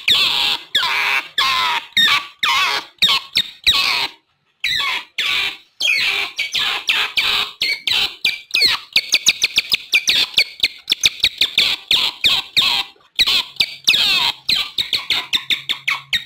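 Otters giving a rapid series of short, high chirping and squealing calls. The calls come two or three a second at first, then quicken to several a second around the middle, with a few brief pauses.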